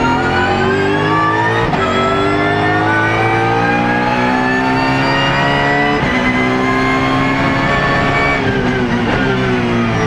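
BMW Z4 GT3 race car's V8 at full throttle, heard from inside the cockpit. Its pitch climbs through the gears, with quick upshifts about two seconds in and again about six seconds in. Near the end the revs fall through a few quick downshifts as it slows.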